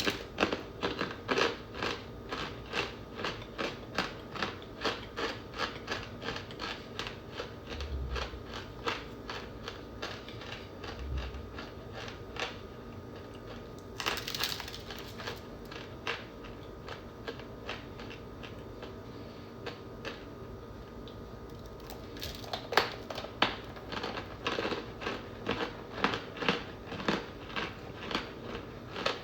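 Crunchy chunks of cornstarch being bitten and chewed, giving a run of crisp crunches about two or three a second. The crunching thins out for several seconds about halfway through, then picks up again.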